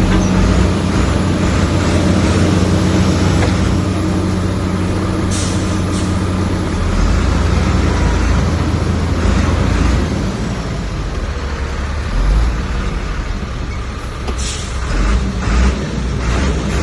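Heavy diesel earthmoving machinery running steadily under load, with its engine note changing partway through. A couple of short high hisses cut in, about five seconds in and again near the end.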